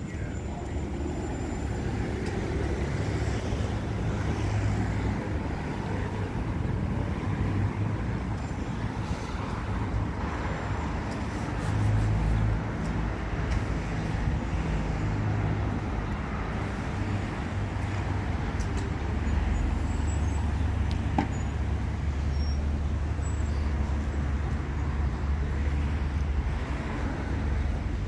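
Steady low rumble of an SUV engine and street traffic as a fire department Chevrolet Tahoe command vehicle rolls slowly out of a station bay.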